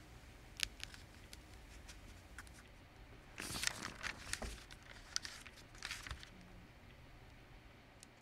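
Faint paper handling: a few light ticks about half a second in, then rustling of paper from about three to four and a half seconds in and again briefly around six seconds, over a low steady room hum.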